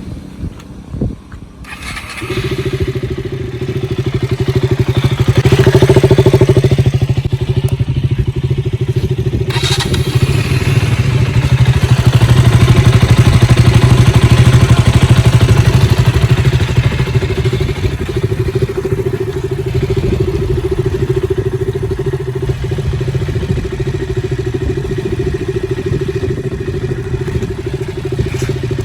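KTM RC 200's single-cylinder engine running at a steady, even note. The note comes in after a few knocks about two seconds in and swells louder twice.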